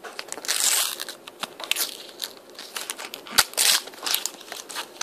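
A Panini sticker packet's foil wrapper being torn open and crinkled by hand: a run of crackling, rustling tears, loudest about half a second in and again a little after three seconds.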